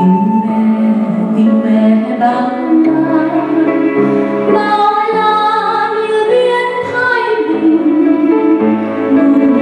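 A woman singing a solo in Vietnamese into a microphone, accompanied by a grand piano.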